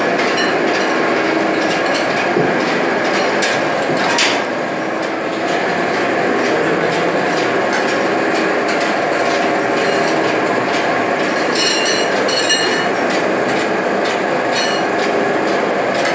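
Automatic noodle-making machine running: steady mechanical clatter from its steel dough rollers and drive. A sharp click about four seconds in and a few ringing metallic clinks about two-thirds of the way through.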